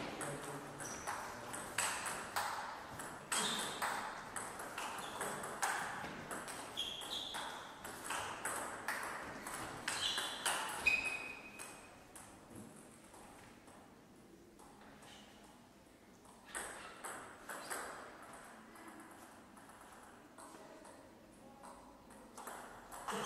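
A table tennis rally: the ball clicks quickly back and forth off the paddles and the table for about twelve seconds, with a few short high squeaks from the players' shoes on the wooden floor. After the point, a few scattered ball bounces.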